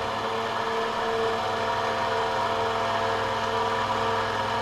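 Sieg X2 mini mill spindle running steadily at about 800 RPM with a fly cutter, giving a steady motor hum and whine.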